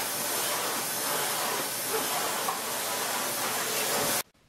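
Vacuum cleaner running steadily, cutting off abruptly near the end.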